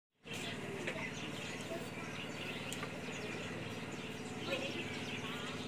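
Small birds chirping in short wavering calls over a steady low mechanical hum.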